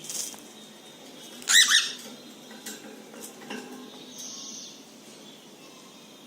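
Cockatiel giving two quick chirps in a row about one and a half seconds in, with a few faint clicks around them.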